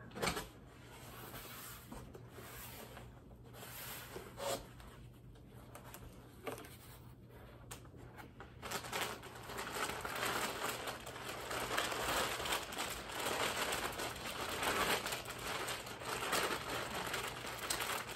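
Clear plastic wrapping crinkling and rustling as it is handled and pulled out of a cardboard box. The first half has a few scattered knocks and rustles, and from about halfway a dense, continuous crinkling.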